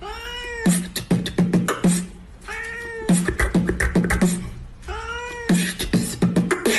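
A cat meowing three times, each one arching call that rises and falls in pitch, in turn with a person beatboxing short rhythmic runs of sharp clicks and thumps over a low hum.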